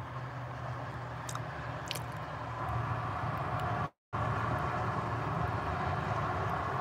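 Steady low mechanical hum, like a running engine or nearby traffic, that cuts out completely for a moment about four seconds in.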